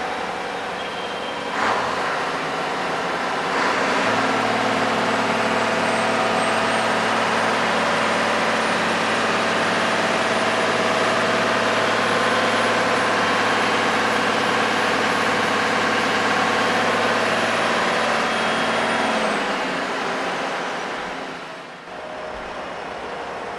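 Machinery of a stationary electric-diesel hybrid train running: a steady mechanical hum with a faint high whine, stepping up twice in the first few seconds and winding down near the end.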